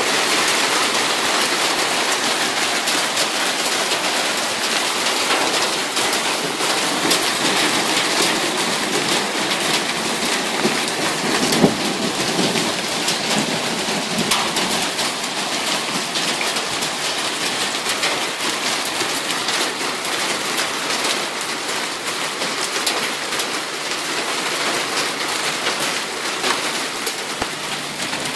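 Heavy hailstorm: pea-sized hailstones pelting the ground and hard surfaces in a steady dense clatter of countless small ticks. A single louder thump about twelve seconds in.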